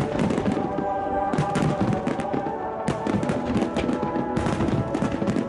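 Many aerial fireworks shells bursting in quick succession with dense crackling, over music with sustained tones.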